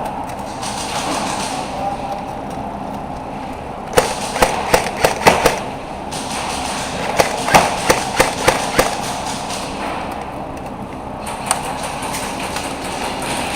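Airsoft gun firing two quick strings of about six shots each, a couple of seconds apart, with one more single shot later.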